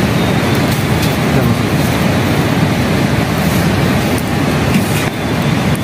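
Loud, steady rushing noise, heaviest in the low range, with a few faint clicks through it.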